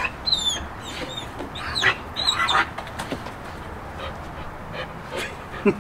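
Four-month-old German Shepherd puppy whining in several short, high-pitched cries, the whine of a frustrated puppy trying to get at its reward.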